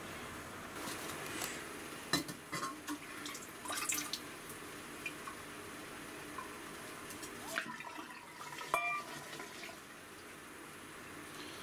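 Metal camp cookware being handled: scattered clinks and knocks about two and four seconds in, then a sharp metallic clink that rings briefly about nine seconds in.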